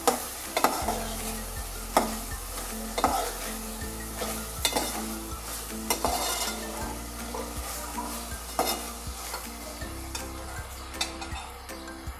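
A steel spoon knocking and scraping against a metal cooking pot as prawns and drumstick pods are stirred while they sizzle in oil. The knocks come irregularly over a steady hiss, the loudest ones in the first few seconds.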